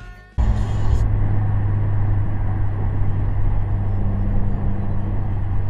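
Steady road and engine drone of a car cruising on a highway, heard from inside the cabin, starting suddenly about half a second in.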